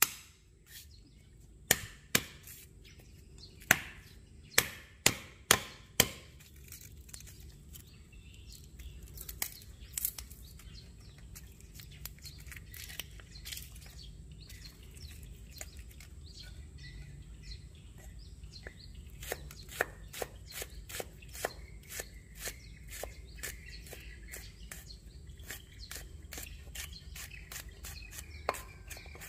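Chef's knife on a wooden log chopping block. In the first few seconds the flat of the blade comes down on garlic cloves with several sharp whacks to crush them. After a quieter stretch of small clicks, from about two-thirds of the way through the blade taps rapidly on the wood as the garlic is chopped.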